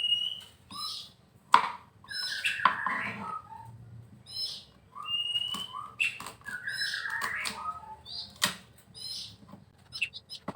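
Songbirds calling: short rising whistles and repeated twittering phrases, with two sharp knocks, about one and a half seconds in and near the end.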